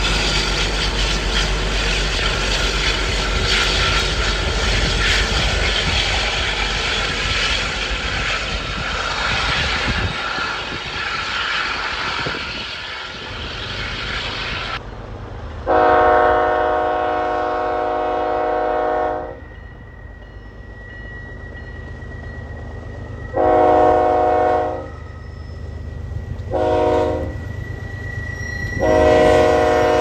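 Union Pacific freight train rolling past with a steady rumble and rattle of wheels on rail, fading out in the first half. About halfway, a BNSF freight locomotive's multi-tone air horn sounds long, long, short, long: the standard grade-crossing signal.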